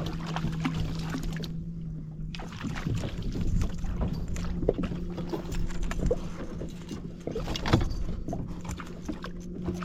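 Small fishing boat on the water: a steady low hum runs under water splashing and knocking, with scattered sharp clicks and knocks. The hum drops out for about a second near the two-second mark.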